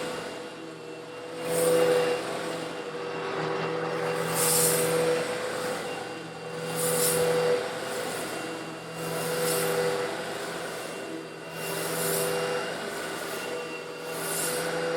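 Eureka vacuum cleaner running steadily while sucking up small coarse stone granules, slightly larger than sand. Every two to three seconds the sound swells, with a hiss and rattle of grit being pulled in.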